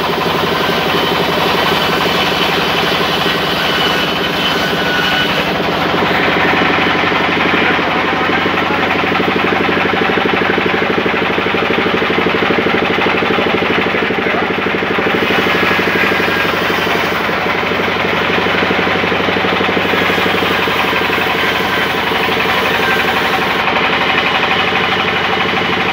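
Large belt-driven band saw mill running while its blade rips lengthwise through a big log: a loud, steady machine noise with a fast, even pulsing underneath, and the hiss of the cut growing and easing a few times as the log is fed through.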